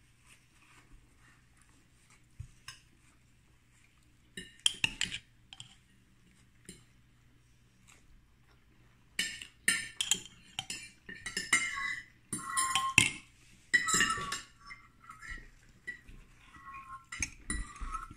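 Cutlery clinking and scraping against ceramic plates while a fajita is served: a brief few clinks about four seconds in, then a busy run of clinks and scrapes from about nine seconds on.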